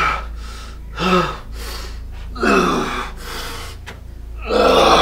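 A man gasping and groaning in distress: about four loud, heaving gasps, each falling in pitch, over a steady low hum.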